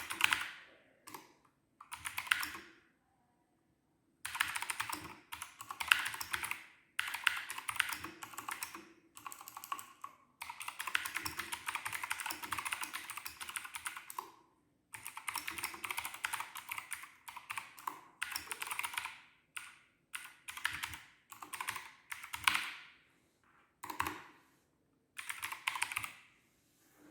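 Keychron K2 (Version 2) mechanical keyboard being typed on. Runs of rapid keystroke clicks a few seconds long are separated by short pauses, with shorter bursts of a few presses near the end.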